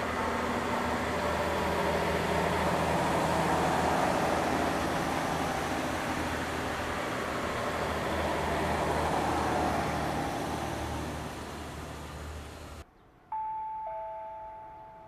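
Diesel railcar train running out of the station, its engine drone and wheel rumble fading slowly over about twelve seconds. After a sudden cut comes a two-note descending electronic chime, the platform tone that heralds an approaching train.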